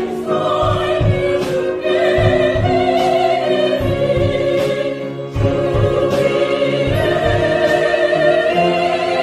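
Mixed church choir singing a Korean worship song, accompanied by a youth string orchestra with violins and a piano.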